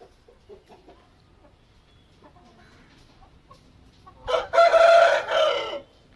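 A rooster crows once, loudly, about four seconds in, for about a second and a half, after some faint clucking.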